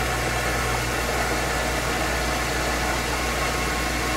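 A vacuum cleaner used for dust extraction runs with a steady rushing noise, over a CNC wood lathe spinning a square wood blank before the cutter reaches the wood.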